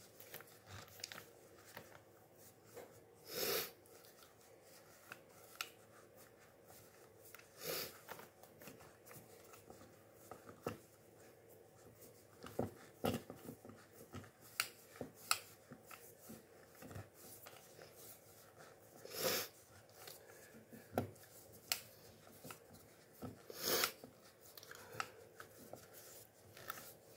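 Fingers pressing and working pie-crust dough into a metal tube cake pan: faint rubbing with scattered light clicks and taps against the metal, and a few louder half-second rushes of noise spread through.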